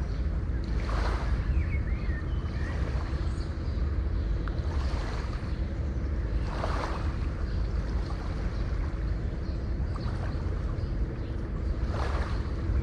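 Sea waves washing onto the shore over a steady low surf rumble, with a wave surging in about every five to six seconds.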